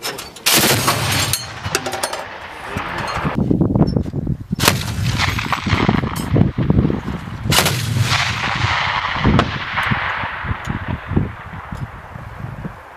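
ZU-23-2 twin 23 mm anti-aircraft autocannon firing several bursts. The sharp reports roll on and trail away in a long echo.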